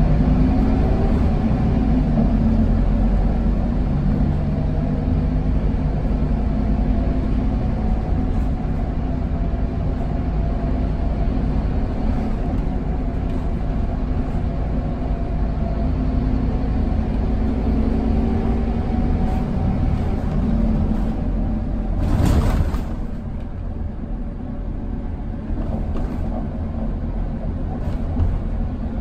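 Interior noise of a Scania K280UB bus under way: the 9.3-litre five-cylinder Scania DC9 diesel and ZF EcoLife six-speed automatic drone steadily, the engine tone slowly rising and falling with speed. About three-quarters of the way through there is a brief loud hiss, after which the engine noise drops a little.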